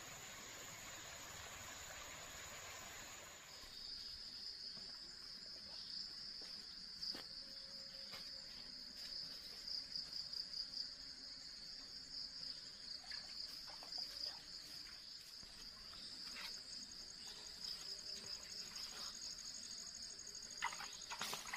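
Flowing stream water for the first few seconds, then a steady, pulsing high-pitched insect chorus with a few faint clicks. Rustling in the undergrowth near the end.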